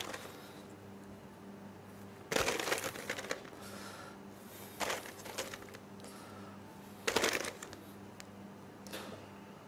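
Handling noise from frozen raspberries and their container: a few brief rattling, crinkling bursts, the first about two seconds in, others around five and seven seconds in, over a steady low hum.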